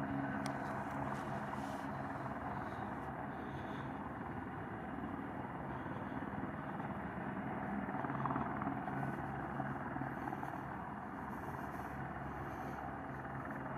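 Airbus H125M helicopter running: a steady engine and rotor noise with a low hum.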